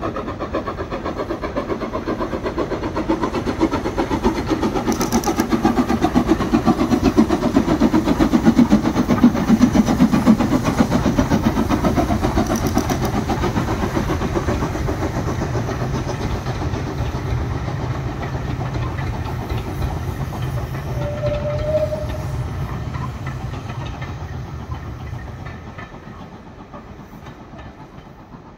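Taff Vale Railway No. 85, an 0-6-2 steam tank locomotive, working past with a train of coaches, its exhaust beating fast and loudest about eight to ten seconds in. The coaches then rumble by on the rails, and the sound fades away near the end.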